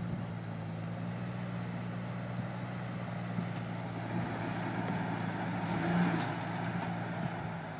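Off-road Jeep's engine running steadily at low revs as it crawls over rocks, swelling briefly about six seconds in.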